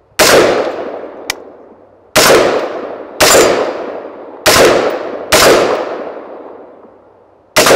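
Anderson Dissipator AR-15 rifle with a 16-inch barrel and rifle-length gas system firing six slow, aimed semi-automatic shots, about a second or two apart. Each loud shot echoes and fades before the next.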